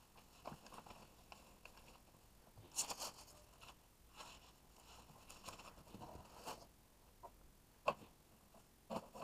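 Faint rustling and crinkling of a monitor's plastic wrap and its cardboard box as the monitor is handled in the packaging, with a louder crinkle about three seconds in and a few sharp clicks near the end.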